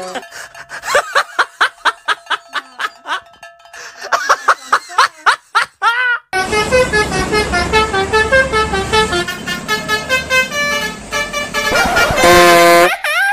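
Musical 'telolet' bus horn sounds: quick repeated toots with swooping pitch for about six seconds, then a melody with a bass line, and a loud held multi-tone horn chord near the end.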